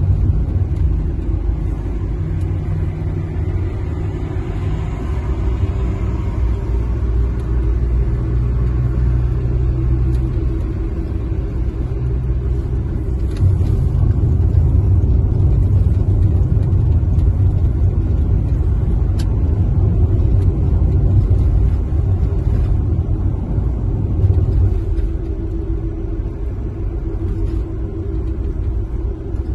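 Steady low rumble of a car driving, tyre and engine noise heard from inside the cabin.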